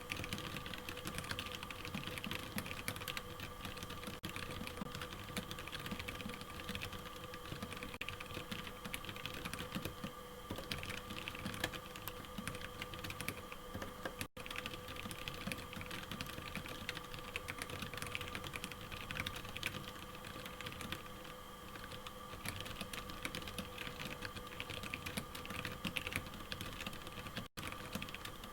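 Fast, continuous typing on a Royal Kludge RK61 mechanical keyboard with tactile brown switches: a steady stream of key clacks.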